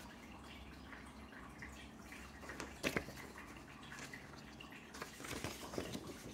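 Loose sheets of thin printed paper being handled and turned over, rustling and crackling, with the sharpest crinkle about three seconds in and a cluster of rustles near the end.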